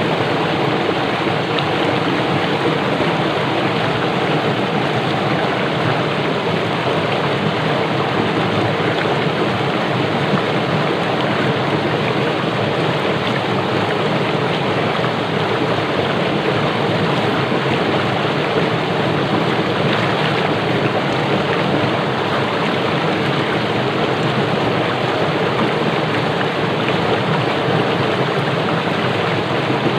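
Fast-flowing stream rushing over rocks, a steady, dense rush of water.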